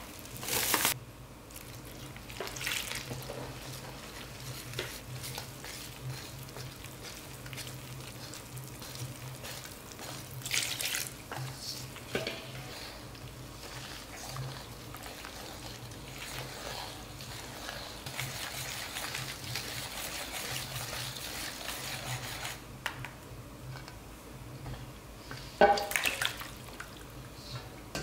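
Wire whisk stirring chicken frying batter in a stainless steel bowl: steady wet stirring, with a few sharper knocks.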